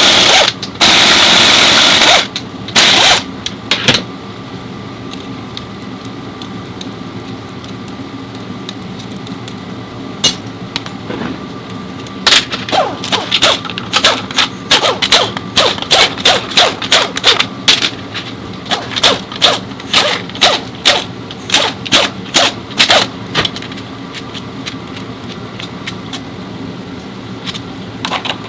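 Impact wrench rattling, used to undo bolts while a transmission is taken out of the car. It runs in a long burst at the start and two short ones, then after a lull in steady low shop hum it goes in about twenty quick short bursts.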